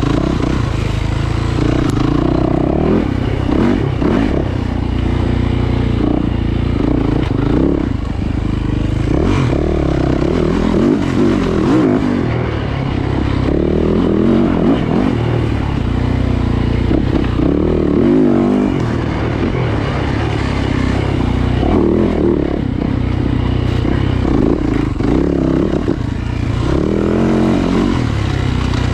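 Yamaha YZ450F four-stroke single-cylinder dirt bike engine under hard riding, the revs rising and falling over and over as the throttle is opened and shut, heard from a helmet camera with wind rush over the microphone.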